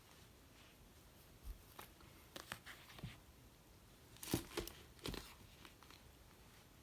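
Packaging being handled: irregular crinkling and tearing of wrapping, with a cluster of louder rustles about four to five seconds in.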